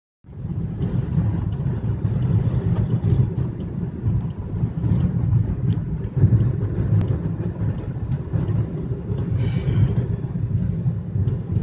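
Maruti Suzuki Dzire's cabin noise while driving on a wet highway: a steady low rumble of road, tyre and engine noise. A short higher-pitched tone sounds briefly about nine and a half seconds in.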